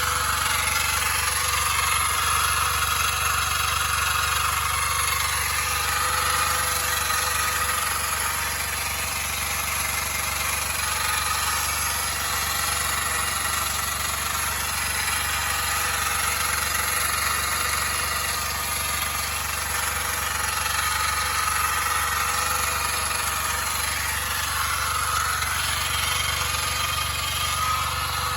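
Suzuki Jimny JB23's 660 cc three-cylinder engine running steadily, recorded for an abnormal noise it is making. Over the engine note, a whine drifts slowly up and down in pitch.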